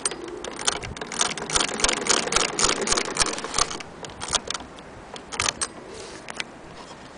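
Singer 12K hand-crank sewing machine stitching through denim: a quick, even clacking of the needle mechanism at about five clicks a second for three and a half seconds, then a few slower, scattered clicks as the cranking slows.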